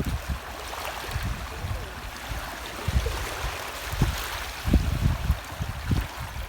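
Steady rush of moving water, with wind buffeting the microphone in irregular low gusts.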